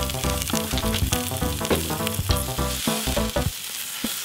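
Sliced onions sizzling and frying in grapeseed oil in a hot cast-iron skillet, stirred with a wooden spoon. Background music plays along with it.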